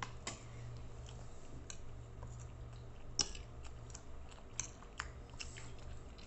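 Metal spoon and fork clicking and scraping on a plate between mouthfuls of chewing, with scattered sharp clicks and the loudest about three seconds in, over a steady low hum.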